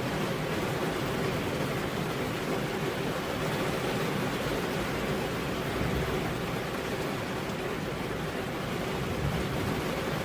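Steady rainfall, an even unbroken hiss with no separate drops or thunder standing out.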